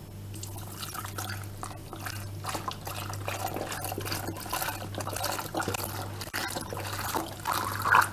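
Milk pouring from a carton into a stainless steel pot onto dry flour, cornstarch and sugar, splashing irregularly and growing louder near the end.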